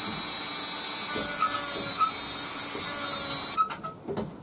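Dremel rotary tool running at high speed, its worn sanding drum grinding a small lump of steel off a scandi-grind knife blade near the plunge cut. A steady high-pitched whine that cuts off suddenly about three and a half seconds in, followed by a few light clicks.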